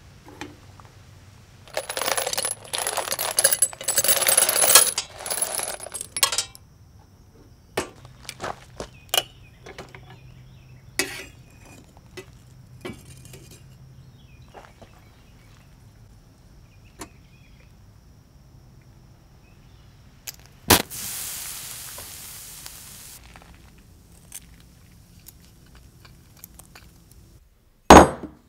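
Brass rifle cartridge casings clattering and clinking together as a handful is tipped in, followed by scattered metallic clicks and knocks. A sharp crack and a short hiss come later, and near the end a solid lump of cast brass is set down with a loud knock.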